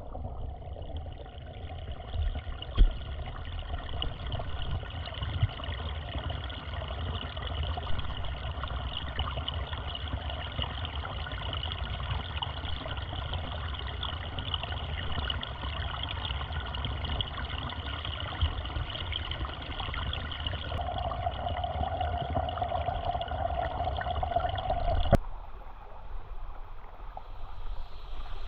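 Small stream trickling steadily. A steady tone joins in about three-quarters of the way through, and near the end the water sound cuts abruptly to a quieter level.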